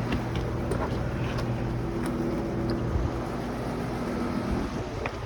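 A vehicle engine idling steadily as a low, even hum, fading out near the end.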